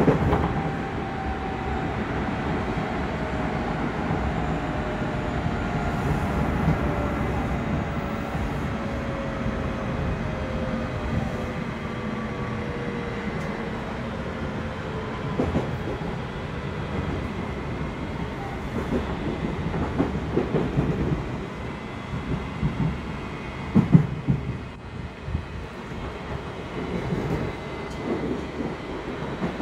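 Odakyu 2000 series electric train running, heard inside a motor car: the Mitsubishi IGBT VVVF inverter and traction motor tone falls steadily in pitch over the first dozen seconds as the train slows, over the low rumble of wheels on rail. Later there are a few scattered knocks from the wheels over rail joints.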